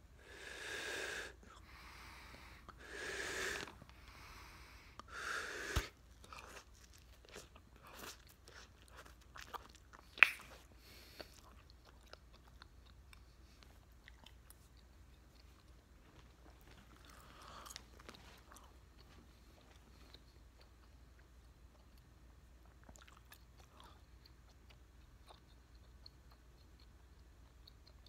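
Mouth sounds from a large wad of bubblegum (eighteen pieces of Ice Cubes Bubble Breeze): three breathy blowing sounds in the first few seconds as a bubble is worked, a sharp pop about ten seconds in, then soft wet smacking and clicking chews that grow fainter.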